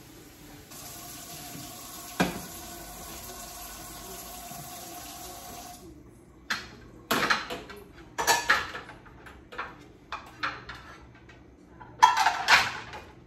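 Kitchen tap running steadily for about five seconds, with one knock partway through, then the water stops and dishes and pans clatter in a string of clanks and knocks, the loudest near the end.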